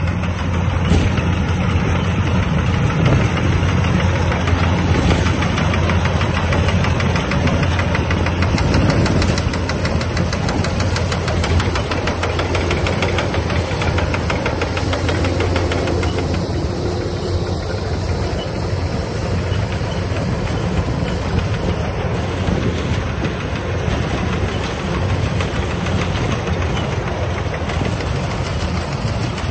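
Kubota DC-105X combine harvester's diesel engine running steadily under load while it cuts and threshes rice, with a dense, fast rattle of machinery over the engine.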